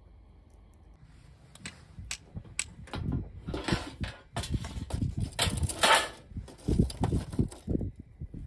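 Wooden kindling sticks and lumps of charcoal being handled for a campfire: separate knocks start about a second and a half in, then build into dense clattering and rustling.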